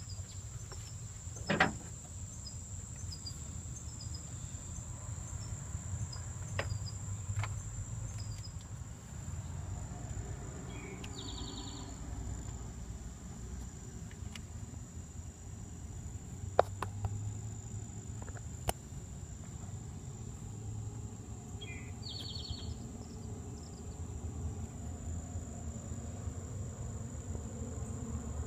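Insects trilling, a steady high-pitched tone that holds throughout, over a low rumble. A few sharp clicks cut through, the loudest about one and a half seconds in and again about sixteen seconds in.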